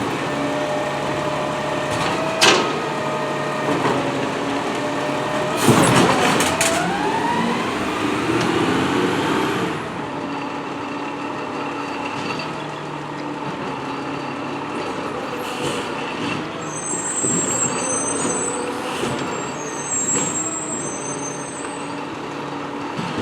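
Peterbilt 320 garbage truck with a New Way Rotopac body running. There is a sharp clank about two and a half seconds in, then a loud hiss around six seconds with a whine rising in pitch until about ten seconds in. After that the truck settles to a steadier, quieter running sound.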